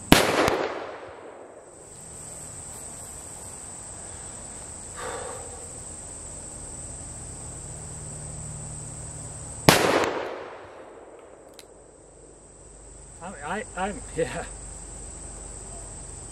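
Two shots from a Smith & Wesson 500 revolver firing the .500 S&W Magnum, about ten seconds apart. Each is a sharp crack followed by an echo that fades over a second or so.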